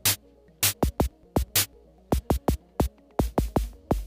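Electronic drum-machine beat and synth tones from a DIY touch-controlled synthesizer built on a Daisy Seed, playing through its audio output. Sharp clicky hits come several times a second over a low bass pulse, and the bass thumps grow heavier near the end.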